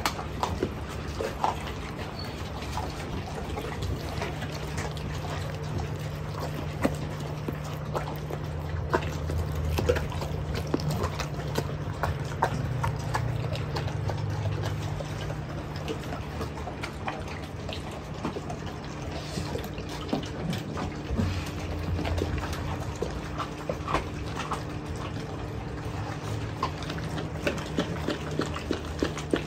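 Mastiffs eating raw chicken: wet chewing, slurping and irregular crunches of raw chicken bone. A steady low hum runs underneath.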